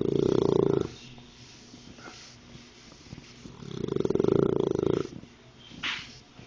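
A dachshund snoring in its sleep: two long, rattling snores, one right at the start and another about four seconds in, with a short breathy puff near the end.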